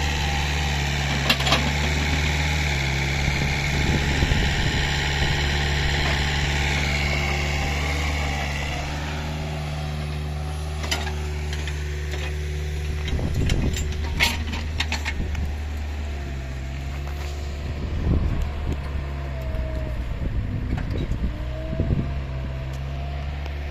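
Mitsubishi hydraulic excavator's diesel engine running steadily while backfilling soil, with a higher whine over the first several seconds that then drops away, and scattered knocks and clatters.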